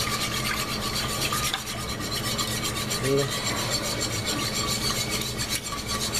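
Wire whisk stirring soup and broth in a crockpot, scraping in quick repeated strokes.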